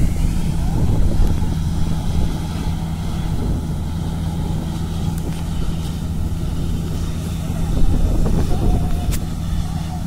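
Steady low drone of diesel farm machinery, with a Balkar combine harvester cutting wheat.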